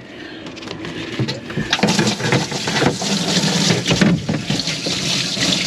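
Water splashing and running in a boat's live well as cleaned fish in a landing net are swished through it to rinse them. The splashing builds about two seconds in, over a steady low hum.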